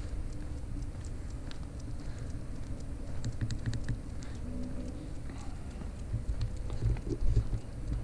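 Footsteps and scattered light clicks of walking a dog on a leash along a paved sidewalk, over a steady low rumble, with a louder run of knocks near the end.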